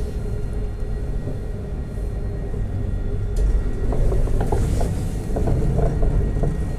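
Alstom Citadis 302 tram running, heard from inside the passenger car: a steady low rumble with a hum. From about halfway in, a run of short clicks and knocks from the wheels on the rails grows louder.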